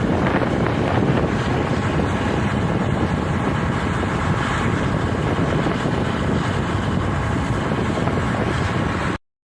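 Steady rushing noise of wind buffeting a phone microphone, which cuts off suddenly near the end.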